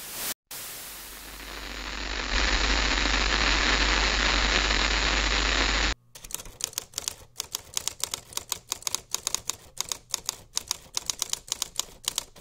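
Intro sound effects: a hiss that swells over about two seconds, holds, and cuts off suddenly about six seconds in, then a run of rapid, irregular sharp clicks, several a second, like fast typing.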